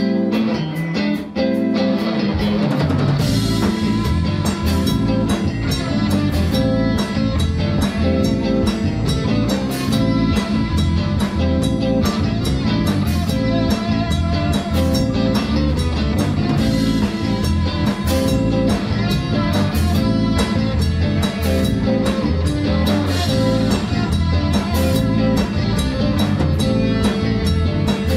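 A rock band playing live: electric guitar at first, then drum kit and bass come in about two seconds in and the full band plays on with lead electric guitar.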